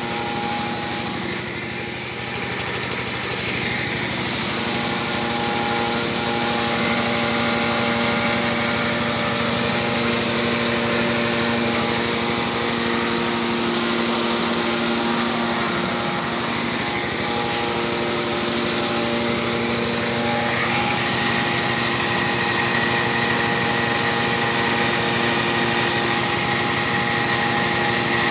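Corn cracking machine running steadily under load, a steady mechanical hum with several held tones as kernels pass through. A higher steady whine joins in about three-quarters of the way through.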